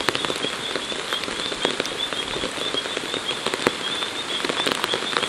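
Steady rain falling on vegetation, with many small drop ticks and a high chirping repeated throughout.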